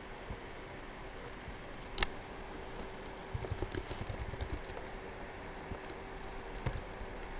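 Computer keyboard typing: a short run of quick keystrokes in the middle, with a single sharp click about two seconds in and another near the end, over a steady faint hum and hiss.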